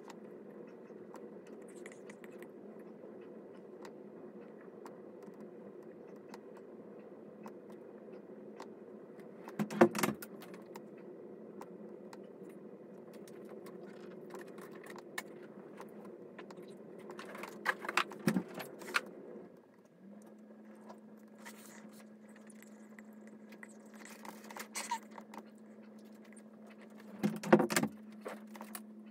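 Steady low hum broken by three short bursts of clattering, like small hard objects or keys being handled. About two-thirds of the way in, the hum drops away and a steady low tone takes its place.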